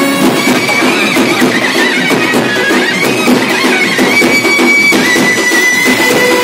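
A clarinet playing a reedy melody over a village brass band; its high notes bend and waver in the first half, then hold steady from about five seconds in.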